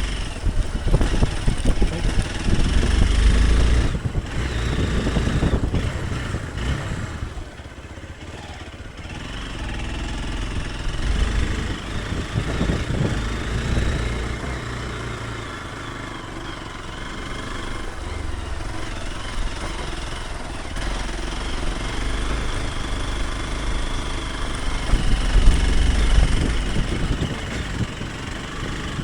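Hero Xpulse 200 Pro's single-cylinder engine running as the motorcycle rides a rough, wet offroad trail, the sound swelling and easing again and again with the throttle and the terrain.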